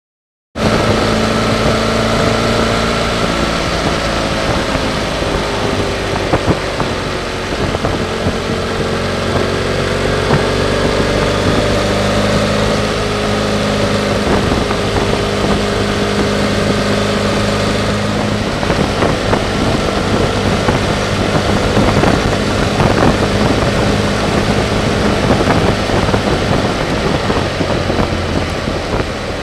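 BMW F800GS parallel-twin engine running while the motorcycle is ridden, its pitch rising and falling with the throttle through the bends, under a steady rush of wind noise. The sound cuts in abruptly about half a second in.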